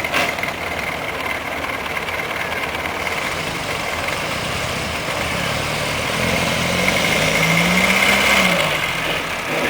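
1926 Morris Cowley's four-cylinder side-valve engine running on the bare rolling chassis, with a short clunk at the start. About six seconds in, its note rises, then falls away again near the end.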